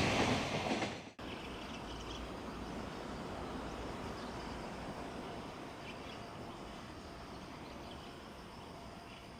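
A passing freight train's rumble fading out in the first second and cut off abruptly. Then quiet outdoor ambience with a steady low hum and a few faint high chirps.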